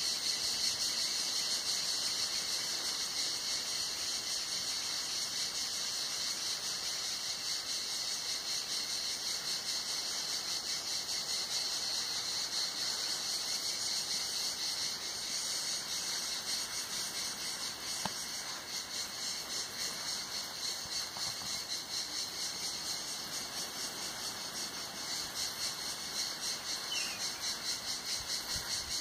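Cicadas singing in chorus: a continuous high, shrill buzz that throbs in a fast, even rhythm, the beat growing clearer near the end.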